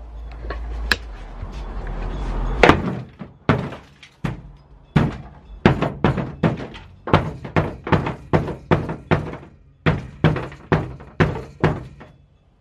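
A wooden-handled hammer beating on dry ice spread over the factory sound-deadening mat on a car's bare steel floor pan, with sharp knocks about two a second. The dry ice chills the deadener so it can be broken off.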